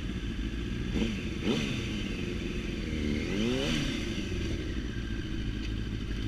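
Sportbike engine idling, with two quick throttle blips about a second in and a longer rev rising and falling around three seconds.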